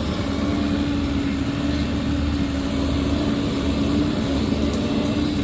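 Diesel engine of heavy equipment running steadily at a constant pitch, with a steady hum and low rumble.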